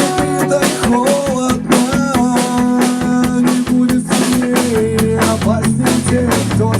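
Rock band playing live: a drum kit keeps a steady beat under guitar and sustained low bass notes.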